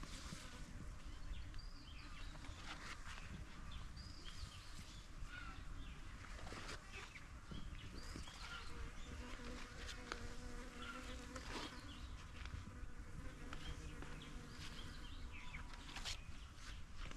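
Faint insect buzzing, humming most clearly through the middle, with scattered short bird chirps over a low rumble of wind.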